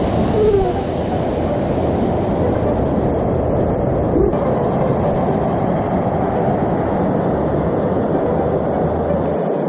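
Steady roar of rushing water from river rapids.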